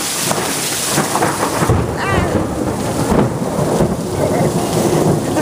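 Thunder rumbling over steady heavy rain, the deep rumble swelling about a second and a half in and rolling on for about two seconds.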